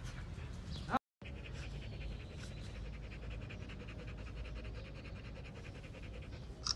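A short rising whine about a second in, then an adult Rottweiler panting in a quick, steady rhythm.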